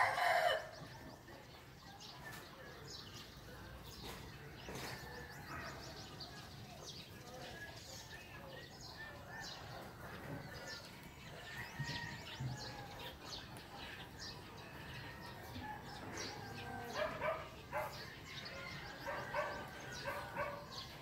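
Small birds chirping and calling in a busy morning chorus. A rooster's crow cuts off about half a second in, and a dog barks a few times near the end.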